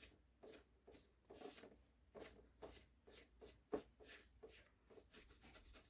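Faint, irregular rubbing strokes of a paper towel wet with isopropyl alcohol, wiping old thermal paste off a CPU, with one sharper scrape a little past halfway.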